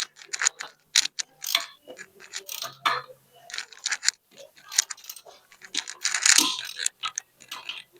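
Irregular metallic clinks and clanks of hand tools and tractor transmission parts being handled and knocked together during disassembly.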